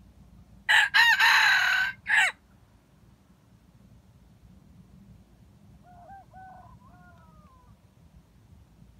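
A red junglefowl rooster gives one loud crow: a short first note, a long middle note and a short, clipped last note. A second, much fainter crow follows about five seconds later.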